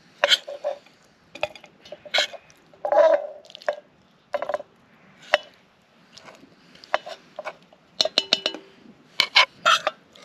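A metal spoon clinking and scraping against a frying pan and a steel cup as curry is spooned from one into the other. Irregular taps and scrapes, some ringing briefly, with a quick run of several taps about eight seconds in.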